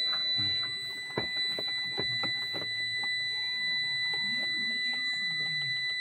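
Truck's low-vacuum warning buzzer sounding continuously as a steady high-pitched tone, which the mechanic calls very noisy. Several sharp clicks come in the first half.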